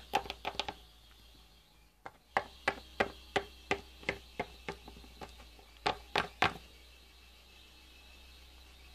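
Light plastic taps on a laminate floor, about three a second, then a short run of three more: toy figures being hopped along the floor to act out walking.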